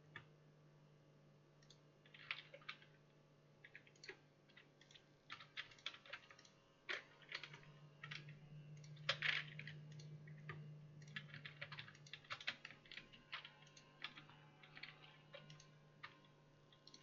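Faint clicks of a computer keyboard and mouse, irregular keystrokes with a quicker run of them about two thirds of the way in, over a steady low hum.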